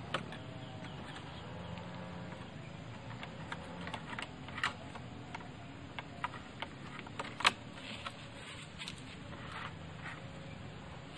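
Bamboo poles knocking and rubbing against each other and the motorcycle carrier as a bundle is strapped on with rubber ties: scattered sharp clicks and knocks, the loudest about seven and a half seconds in, over a steady faint background.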